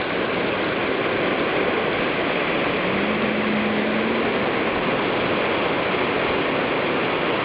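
Steady, unbroken hiss of ocean surf washing on the beach. A faint low hum comes in briefly about three seconds in.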